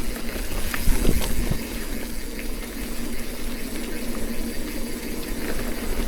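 Mountain bike rolling along an overgrown dirt singletrack: a steady rush of tyre and ride noise, with a few sharp knocks and rattles about a second in.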